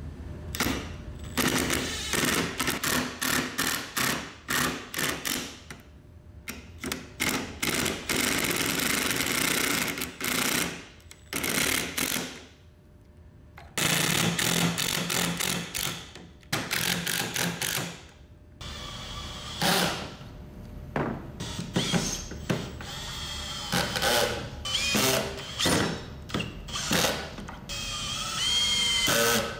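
Makita cordless driver driving pocket-hole screws into 2x4 framing in repeated short runs with brief pauses between them, including one longer run about midway. Some of the later runs carry a high squeal.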